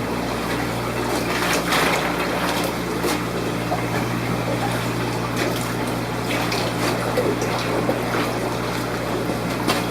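Water being poured and trickling into a container holding newly arrived fish, over the steady low hum of aquarium pumps.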